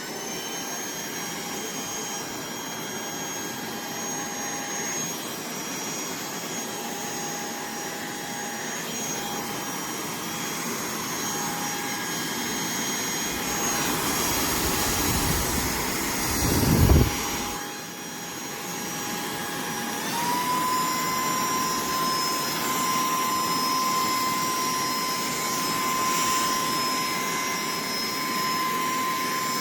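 Cordless handheld vacuum cleaner running with a steady motor whine. Between about 14 and 17 seconds in there is a louder rush of air, and about 20 seconds in the whine steps up to a higher pitch and holds there.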